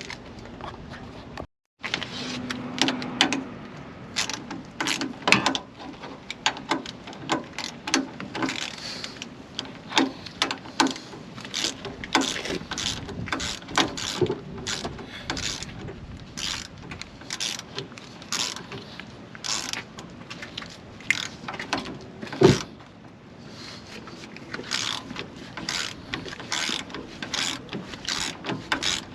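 Hand ratchet wrench clicking in short runs as bolts are hand-tightened, with metallic clinks of tools on metal.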